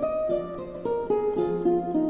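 Background music: a plucked string instrument playing a quick melody, several notes a second.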